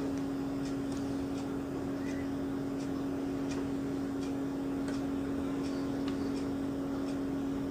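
A steady low hum with a dozen or so faint, light ticks scattered through it, the ticks fitting a multimeter probe tip tapping on a circuit board's solder joints.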